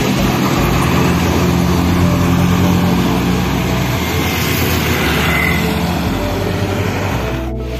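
Road traffic passing close by, mainly motorcycles and scooters with their engines running, plus tyre and road noise. The sound drops out briefly near the end.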